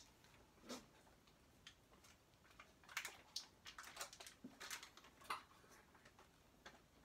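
Paper butter wrapper crinkling as a stick of butter is unwrapped by hand: faint, scattered short crackles, busiest in the middle.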